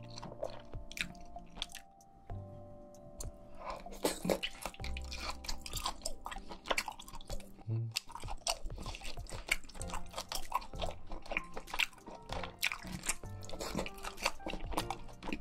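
Close-miked eating: a stream of chewing and crunching bites, dense and irregular, with a quieter pause about two to three seconds in. Soft background music with held notes runs underneath.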